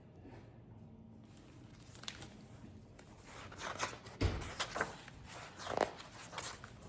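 Soft paper rustles and handling noises of a picture book as its pages are turned, with a dull thump about four seconds in.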